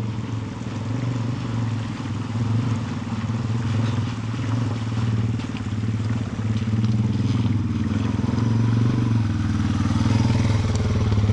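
Dual-sport motorcycle engine running steadily at a low idle-like speed, growing slightly louder toward the end.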